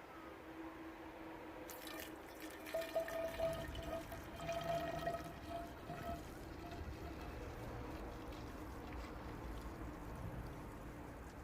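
DPF fuel additive fluid being transferred with a large syringe. Quiet liquid and handling sounds with a thin steady tone, mostly between about two and six seconds in.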